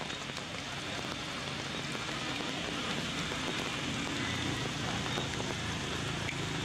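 A steady hiss with a dense patter of small ticks and a low rumble beneath, rain-like in character.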